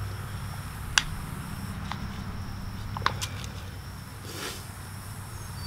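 Thin plastic nursery pot clicking and crackling as a viola is squeezed and pulled out of it for planting: two sharp clicks about two seconds apart, a few fainter ones, and a short rustle of foliage and soil, over a low steady hum.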